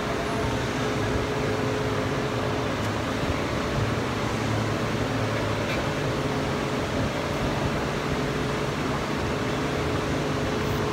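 Steady mechanical hum and hiss, like a fan running, with one faint held tone.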